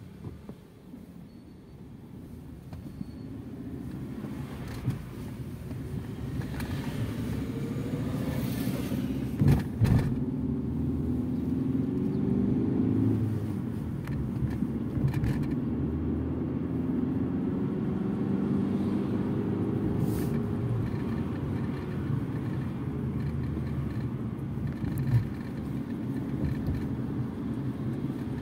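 Fiat Egea car heard from inside the cabin, pulling away and accelerating, the engine note rising and dropping back several times as it goes up through the gears, with road and tyre noise growing louder. Two sharp knocks about ten seconds in.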